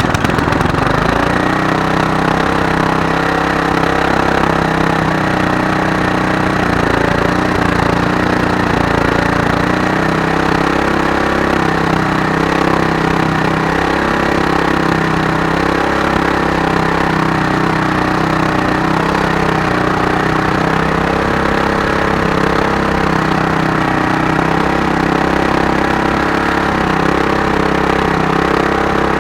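Small lawnmower engine running steadily at a constant speed, just after catching on a start attempt: the engine is running again after a carburetor repair.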